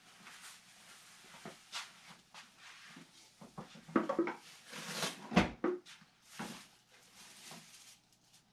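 Handling noises: rustling, scraping and light knocks of materials and tools being moved about, busiest about four to six seconds in, with one dull thump near the middle.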